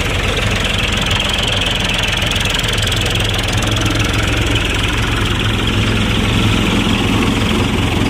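Tractor engine running steadily, driving a chaff cutter that is chopping paddy straw, with a constant loud machine noise.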